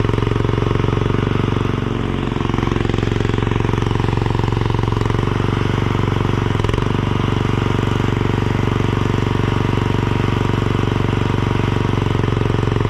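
Mini skid steer's engine running steadily at working speed, a constant low drone whose pitch hardly changes.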